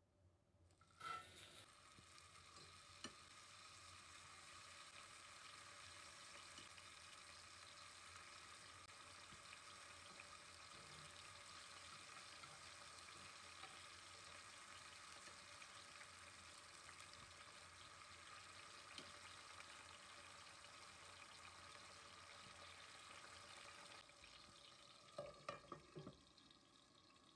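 Food sizzling in a hot frying pan: the sizzle starts suddenly about a second in, runs as a steady hiss, then eases near the end with a few light clicks.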